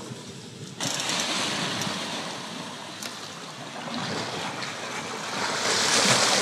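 Small waves washing and sloshing over seaweed-covered shoreline rocks. The sound starts abruptly about a second in after a quieter opening, rises and falls, and is loudest near the end.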